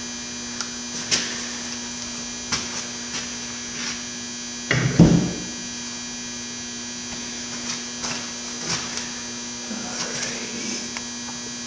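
Steady electrical hum under scattered metal clicks and knocks as automatic transmission parts are handled and set down. The loudest is a heavier clunk about five seconds in.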